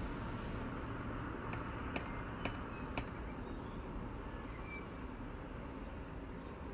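A cat rapping a brass door knocker on a front door: four sharp metallic knocks about half a second apart, over a steady low background hum.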